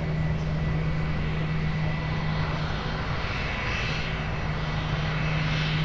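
Airbus A319's IAE V2500 turbofan engines running at low thrust as the airliner taxis after landing: a steady drone, with a hiss swelling about halfway through.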